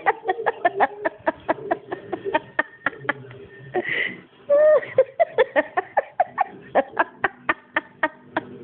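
A person laughing in quick, rhythmic pulses, about four a second, with a short sliding vocal sound about four and a half seconds in.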